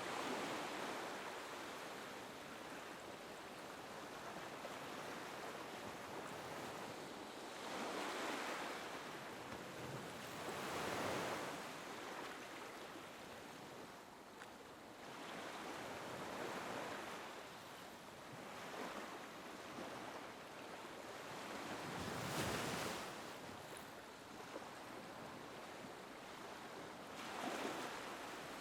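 Small waves lapping on a beach: a steady wash of surf with a wave breaking or washing up every few seconds, the largest about three-quarters of the way through.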